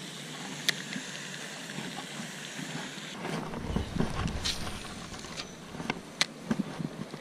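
Wind blowing over the microphone, with a surge of deep buffeting about midway, and a few sharp clicks or taps.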